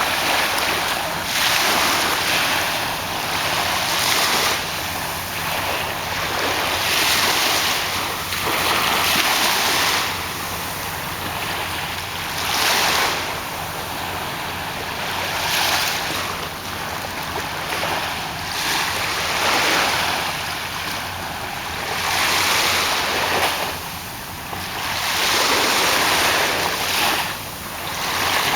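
Sea waves washing in, a steady rush of water that swells and eases every two to three seconds.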